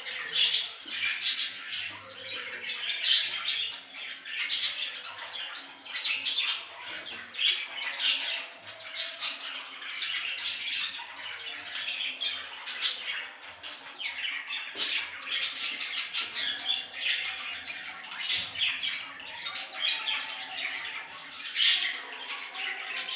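Budgerigars chattering without a break: a steady stream of quick chirps, warbles and squawks.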